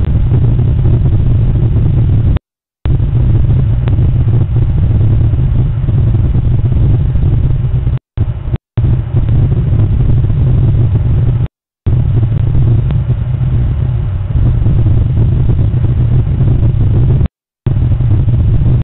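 Loud, steady low rumbling noise that cuts out to silence several times for a fraction of a second, as if the recording drops out.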